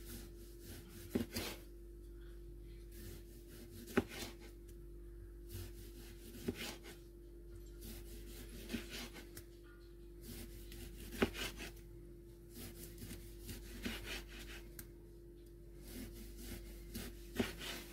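Kitchen knife slicing a tomato on a cutting board: soft sawing strokes with irregular knocks of the blade on the board every second or so. A steady hum runs underneath.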